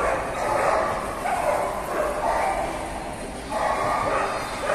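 Dogs barking in a busy dog-show hall, in bursts every second or so over a steady background din.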